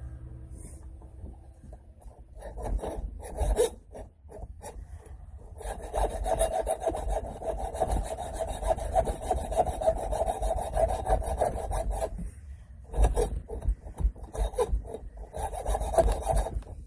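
A lug nut's closed cap being cut off by hand, in quick rasping strokes of metal against metal. The strokes come in three spells, the longest about six seconds, to open the nut so it can sink flush.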